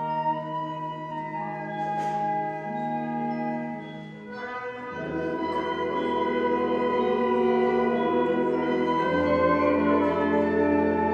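High school symphonic band playing held woodwind and brass chords, with a soft splash about two seconds in. About five seconds in, low brass and tubas enter and the full band swells louder.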